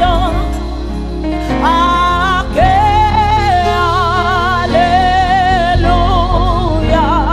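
Live gospel worship song: a woman's solo voice singing long held notes with a wide vibrato, over keyboard and band accompaniment with a steady bass.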